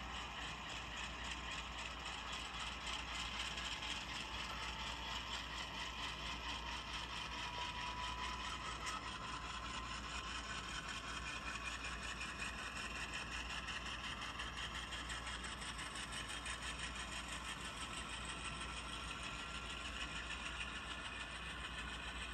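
HO-scale model freight train of covered hopper cars rolling slowly on a curve: a steady rolling rattle of metal wheels on the track with rapid, even clicking, and faint whines that slowly rise in pitch.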